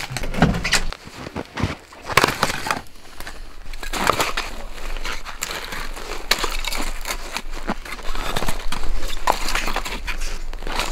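Split firewood knocking and clattering as logs are picked up from a pile and gathered in the arms, with boots crunching in dry snow.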